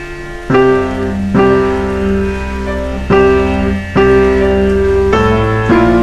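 Slow background music: sustained piano chords over a steady low bass, with a new chord struck about every second.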